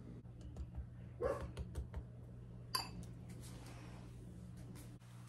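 A dog barks faintly once, about a second in, amid light clinks of a spoon against a ceramic bowl, with a sharper clink near the middle, over a steady low hum.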